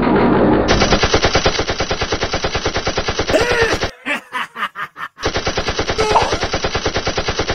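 Cartoon sound effect of automatic machine-gun fire: a long rapid burst, a break of a few single shots around the middle, then a second rapid burst.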